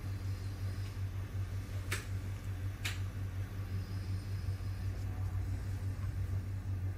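Steady low background hum, like a fan or air conditioner, with two faint clicks about two and three seconds in.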